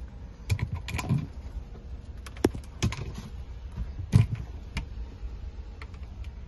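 Irregular light clicks and knocks, about seven over several seconds with the loudest about four seconds in, over a low steady rumble: handling noise inside a camper body.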